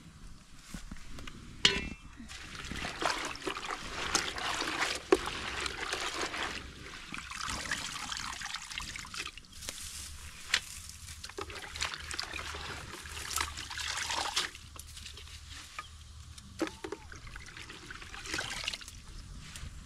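Water sloshing and trickling as leafy greens are swished by hand in a plastic basin, mixed with long breathy rushes of air from someone blowing on a small wood fire to make it flare up. A few sharp clicks come through.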